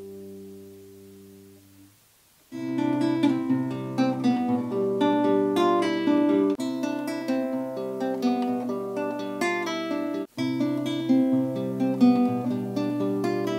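Nylon-string classical guitar: a chord rings and fades away, then after a brief silence a fingerpicked passage starts, picked up first by a camera's built-in microphone. About ten seconds in, after a split-second break, the passage goes on recorded through a Rode NTG-2 shotgun microphone boosted by a headphone amplifier.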